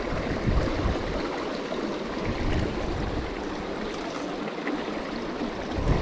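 Steady rush of river water flowing over the streambed.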